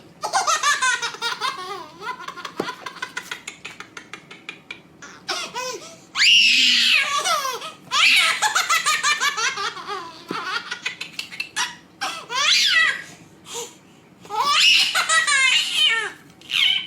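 A young child laughing hard in repeated high-pitched fits, each a quick run of laughing pulses with the pitch swooping up and down.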